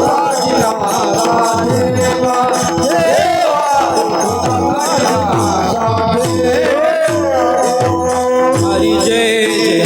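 Kirtan music: a mrudang playing a fast rhythm of deep strokes that slide down in pitch, over a steady harmonium drone with small hand cymbals jingling and a melodic line bending above.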